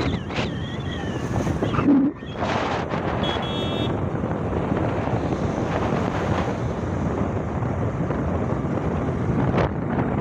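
Wind buffeting the microphone over the steady rumble of a moving vehicle, with a brief high-pitched tone about three seconds in.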